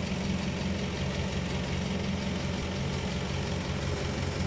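Citroën DS ID19 four-cylinder engine, fitted in a Citroën Traction Avant 11BL, idling steadily and smoothly.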